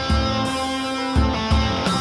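Instrumental rock music led by guitar, with repeated deep bass hits.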